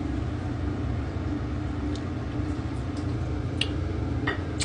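Steady low background hum with a few faint short clicks, about two and three and a half seconds in and twice near the end, that fit lips pressing and parting over fresh lip gloss.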